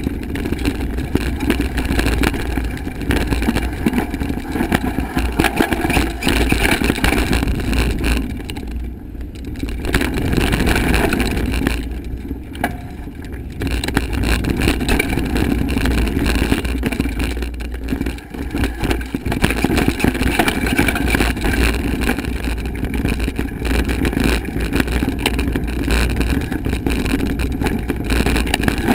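Kona hardtail mountain bike riding fast down dirt forest singletrack: wind buffeting the action camera's microphone, with tyre rumble and the bike rattling over bumps.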